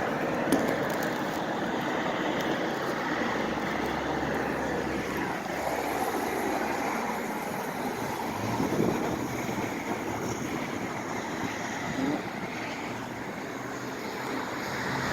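Steady road traffic noise, a wash of passing car engines and tyres, with one vehicle swelling louder as it goes by about nine seconds in.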